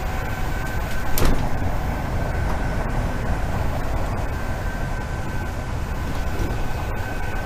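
Acela Express train running at speed, heard from inside a passenger car: a steady low rumble with a faint steady whine above it, and one sharp knock about a second in.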